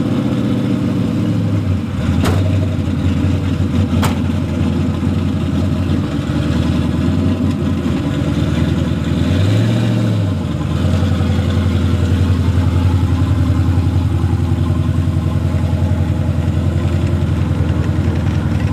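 A drag car's engine idling, with one short rev up and back down about ten seconds in. Two sharp clicks come about two and four seconds in.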